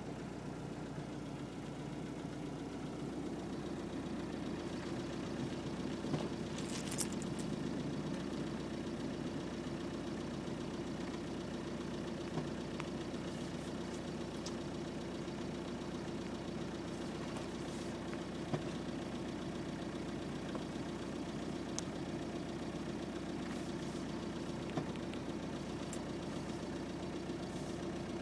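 Isuzu Trooper engine idling steadily, with a few sharp isolated ticks scattered through it: the weird noise the owner hears after switching the AC off.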